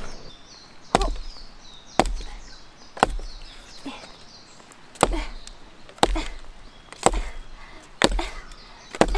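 Small camping axe chopping into a piece of wood, about one steady stroke a second, each a sharp knock that fades quickly; about eight strikes, one near the middle much weaker.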